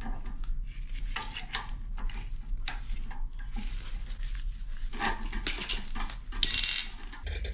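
Slip-joint pliers working the threaded end of a steel drain-machine cable, metal clicking and scraping in short irregular bursts, with a longer rasp about six and a half seconds in.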